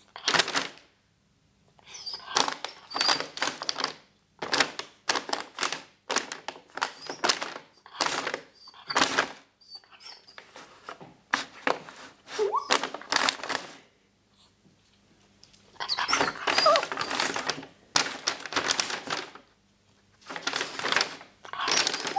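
A puppy rummaging in a paper bag, the stiff paper rustling and crinkling in repeated bursts with short pauses, and now and then a short whine.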